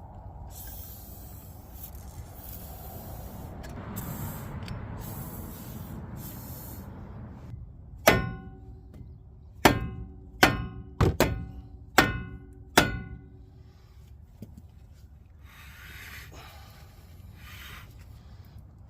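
A hammer striking metal seven times in an uneven run over about five seconds, each blow ringing on briefly, after several seconds of low rustling.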